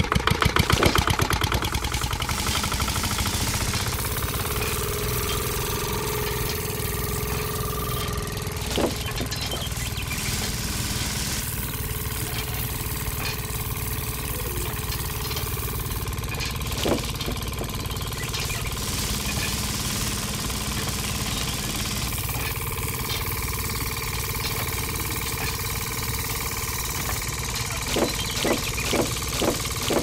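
Small model tractor engine starting with a quick run of pulses, then running steadily. Near the end it chugs in regular pulses, a few a second.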